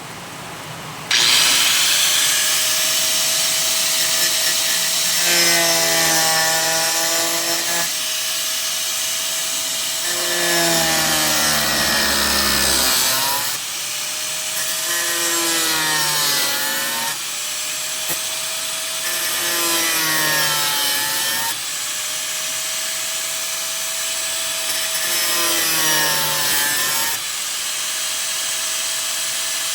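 Handheld power grinder starting up and cutting into rusty sheet steel of a car's rear panel. It runs with a steady whine, and about five times its pitch sags and wavers for a couple of seconds as it bites into the metal, then recovers.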